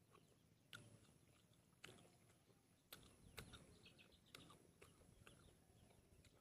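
Faint eating sounds: a handful of soft clicks and smacks from chewing and pulling apart cooked pig intestine by hand, over a very quiet background.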